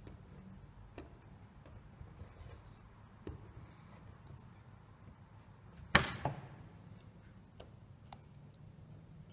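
Chip-carving knife cutting into a small wooden block, faint small clicks and scrapes as the blade slices out a triangular chip. A much louder sharp knock comes about six seconds in, and a smaller one near the end.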